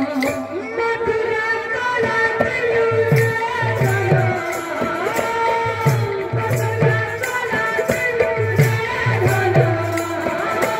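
Live Odia kirtan folk music: double-headed drums played in a steady dance rhythm, their bass strokes sliding down in pitch, with metal percussion clicking on the beat and a singer's melody carried over a microphone.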